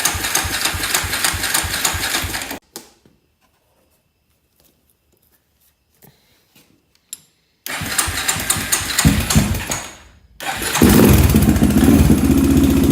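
Honda 400EX ATV's single-cylinder four-stroke engine being cranked on the electric starter without firing, a pause, a second crank, and then it catches about ten seconds in and runs steadily with a rhythmic tick. The engine had been run with its oil bone dry.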